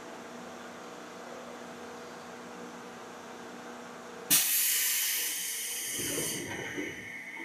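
Seibu 2000 series electric train humming steadily, then about four seconds in a sudden loud hiss of compressed air being released, fading over a couple of seconds. A few heavier thuds follow near the end.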